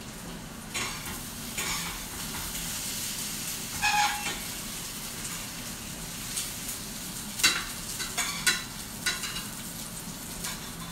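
Potatoes sizzling in hot oil in a frying pan, crisping up as homemade chips, with a metal spoon clinking and knocking against the pan a dozen or so times as they are stirred and lifted out.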